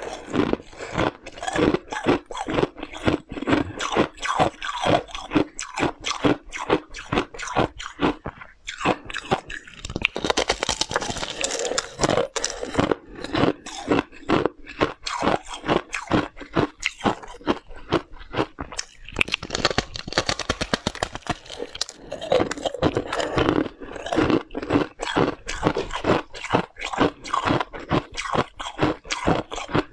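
A mouthful of powdery freezer frost being bitten and chewed: a steady run of crisp crunches, about two to three a second, with a few brief pauses.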